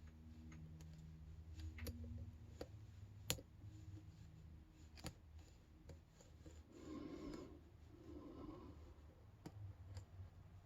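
Faint, irregular clicks of a lock pick and tension wrench working the pins inside a brass padlock, with one sharper click about three seconds in.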